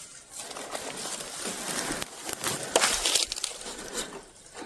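Rustling and crunching of moss and forest-floor debris as an old dug-up metal stovepipe is handled, with a few sharp clicks about halfway through.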